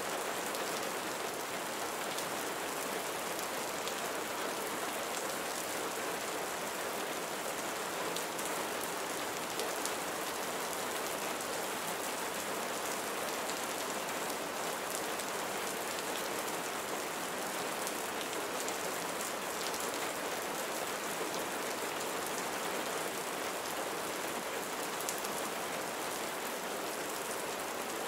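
Steady, even rain: a dense unbroken hiss with faint scattered drop ticks.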